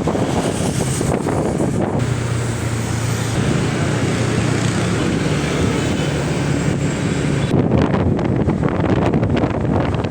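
Wind buffeting the microphone in strong, uneven gusts, with a steady low hum under it for a few seconds in the middle.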